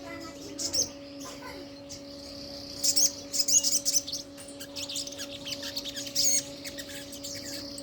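Crimson sunbird (sogon) singing: clusters of high, thin, rapid chirps, busiest about three to four seconds in. A steady low hum runs underneath.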